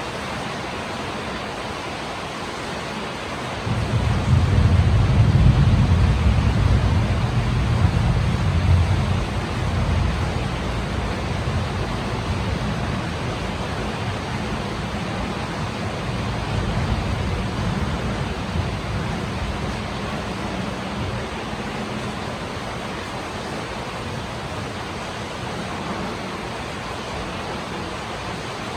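Steady hiss of falling rain. About four seconds in a low rumble comes in suddenly, stays loud for several seconds, then slowly fades away.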